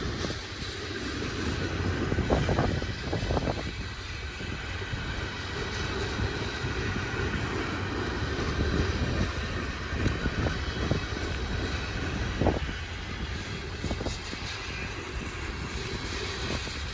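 Freight train cars rolling past: a steady rumble of steel wheels on rail, with a few sharp clanks and knocks from the wheels and couplers, a couple about two to three seconds in and one more near the end.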